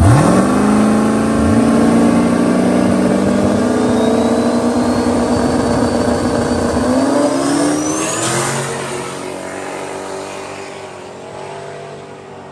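Two turbocharged Mustang street cars launching hard and accelerating away at full throttle, engine pitch jumping up at the launch, with a thin whistle rising in pitch over several seconds. The sound then fades steadily as the cars pull away.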